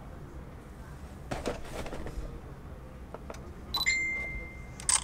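Canon PowerShot G7X Mark II compact camera being handled: light handling rustle, then about four seconds in a click and a steady high electronic beep lasting about a second as the autofocus locks, followed near the end by a sharp click of the shutter sound.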